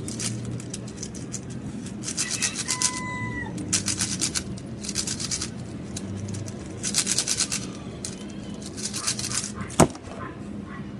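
A Rubik's cube being turned fast: bursts of rapid plastic clicks with short pauses between them, then a single sharp knock near the end as the cube is put down on the table.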